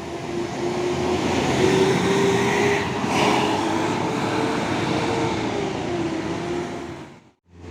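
Maju Lancar intercity bus driving past at close range: its engine note rises and then sinks, over loud rushing road and wind noise. The sound cuts off suddenly near the end.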